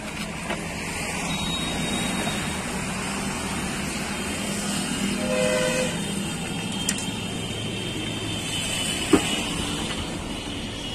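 Steady road traffic noise, with a short vehicle horn toot about five seconds in and a single sharp knock about nine seconds in.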